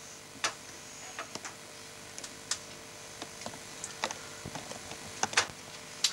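Scattered, irregular light clicks and taps, a dozen or so, over a faint steady hum.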